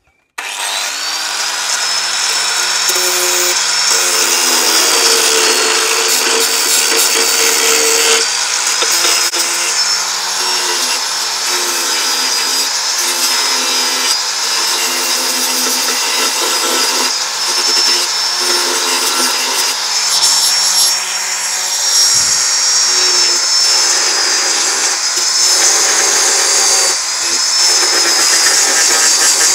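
Power grinder running continuously as it grinds off the frame lugs inside a beehive box. It starts about half a second in, with a steady high whine whose pitch wavers and dips slightly as the disc bites.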